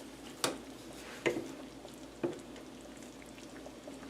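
Cornstarch-thickened onion gravy simmering in an uncovered pan, with three soft bubble pops spaced about a second apart over a faint steady bubbling.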